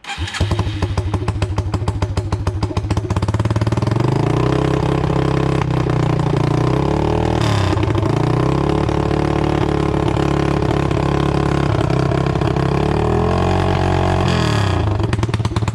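Yamaha TT-R225's single-cylinder four-stroke engine, running without a muffler, catches right at the start and runs loud and steady, its pitch dipping and recovering a couple of times. This is the first start after the rebuild.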